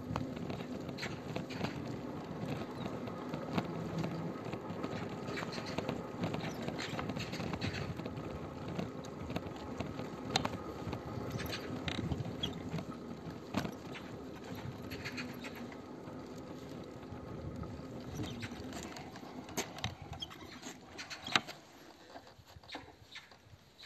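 Footsteps on concrete pavement while walking, with irregular sharp ticks and a steady rustling from the moving handheld phone. It thins out near the end.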